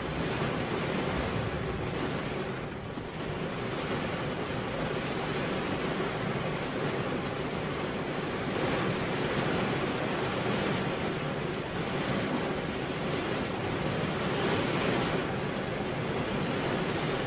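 Steady rain falling on a car window: an even hiss of many drops that swells and eases slightly.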